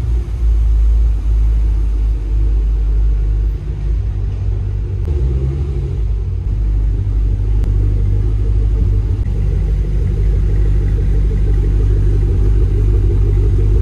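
Chevrolet Camaro SS's 6.2-litre V8 engine running loudly, heard close by.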